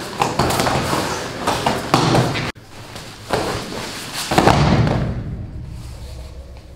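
A grappling dummy thrown down onto gym mats: a heavy thud about four seconds in that dies away slowly, after a few sharper knocks and scuffs earlier on.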